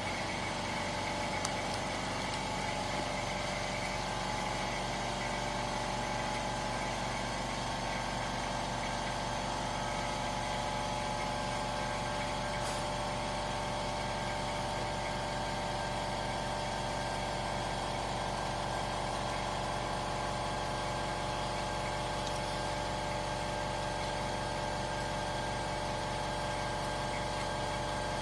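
AOKE DCZ7X CNC flatbed cutter running: a steady mechanical hum with a constant high whine over it.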